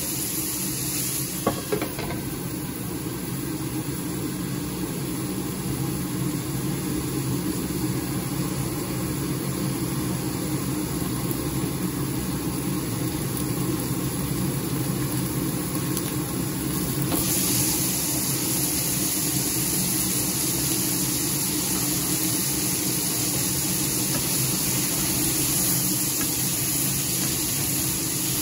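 Chicken pieces sizzling in a stainless steel frying pan, over a steady low hum. About two seconds in, a couple of clicks come as a glass lid goes on and the sizzle turns muffled. It comes back brighter when the lid is lifted, a little past the middle.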